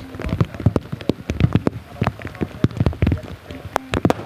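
Heavy rain: a steady wash of rainfall with many sharp, irregular drop impacts close by.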